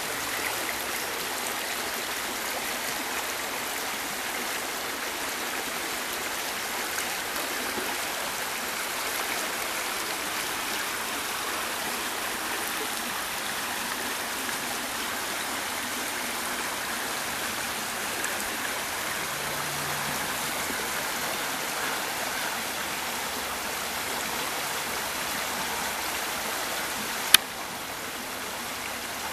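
Shallow creek of rushing spring water running over rocks: a steady rushing, with one sharp click near the end.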